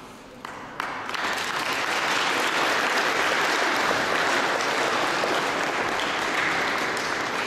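Crowd applause: a couple of single claps, then, about a second in, steady clapping from many people.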